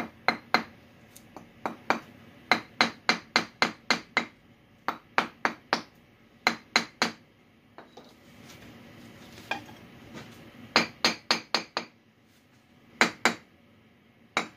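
A hammer tapping a brick down into its mortar bed to level it along a laser line: runs of sharp light taps, about three a second, broken by a few pauses.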